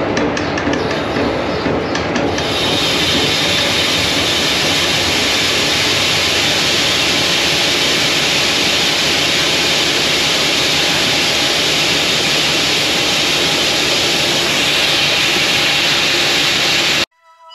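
Shelled corn dumping from a hopper-bottom grain trailer through a steel pit grate. It starts with a rapid rattle of clicks as the hopper gate is cranked open, and about two seconds in it becomes a loud, steady rushing hiss of falling grain that cuts off suddenly near the end.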